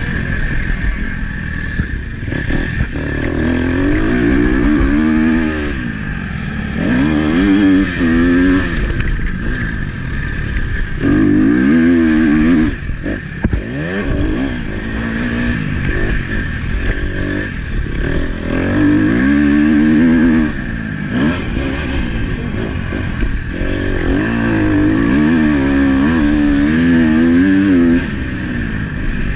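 KTM motocross bike's engine revving hard and easing off again and again, the pitch climbing in surges through the gears and dropping away between them, heard close up from the rider's helmet.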